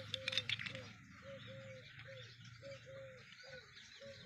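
A dove cooing over and over, short arched notes about two a second. A few light clicks in the first second from the metal phone holder being handled.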